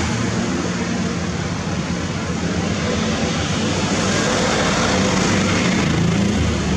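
Engine of a bucket truck running steadily, a low drone under a wash of even noise.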